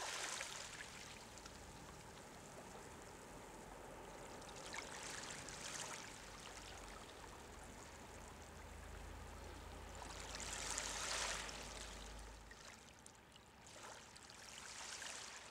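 Quiet sea water washing and lapping, a steady rush that swells and eases several times like small waves coming in, strongest about two-thirds of the way through.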